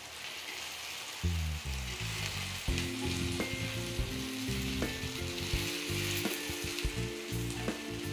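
Mutton shami kababs shallow-frying in oil in a flat iron tawa, a steady sizzle, with a few light taps of the spatula against the pan as they are turned.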